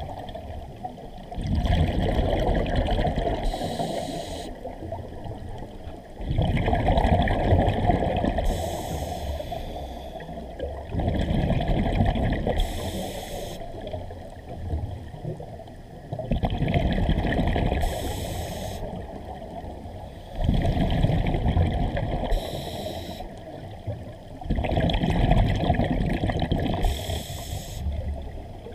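Scuba diver breathing through a regulator underwater: six bubbling exhalations, about one every four to five seconds, each with a brief high hiss from the regulator.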